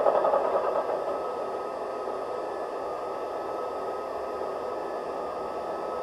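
Massoth eMotion XLS sound decoder in an LGB model of an RhB Ge 6/6 I Crocodile electric locomotive, playing the prototype's recorded sound through the model's small loudspeaker while it stands still. A rhythmic mechanical chatter fades away within the first second, leaving a steady rushing noise.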